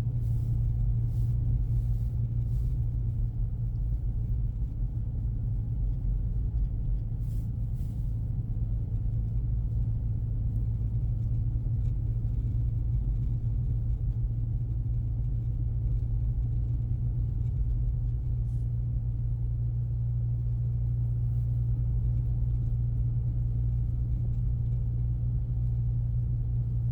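2024 Ford Mustang EcoBoost driving on packed snow, heard from inside the cabin: a steady low rumble of engine and tyres, with a few faint ticks in the first seconds.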